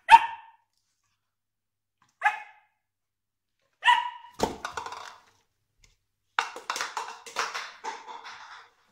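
Dalmatian puppy barking at a small plastic container on the floor: a few single short barks spaced a second or two apart, then a quick run of barks near the end.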